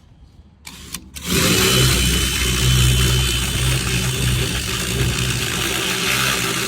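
Electric drill boring a bolt hole through a door: a short blip of the trigger, then the drill runs loud and steady under load for about six seconds before stopping near the end.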